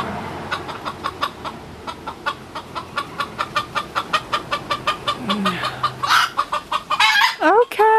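Chickens clucking in a rapid, steady run of about five short clucks a second, with a louder call about six seconds in and rising calls starting near the end.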